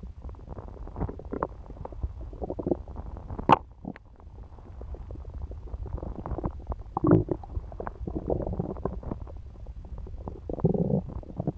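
A human stomach gurgling and rumbling as it digests a meal of pizza: irregular bubbly gurgles over a steady low rumble, with a sharp click about three and a half seconds in and a longer gurgle near the end.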